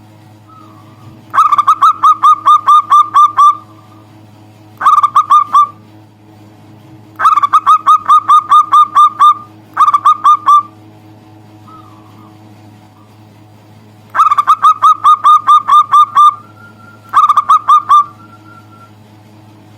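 Zebra dove (perkutut) cooing in loud bursts of rapid staccato notes, six phrases of one to two seconds each with short pauses between them, over a steady low hum.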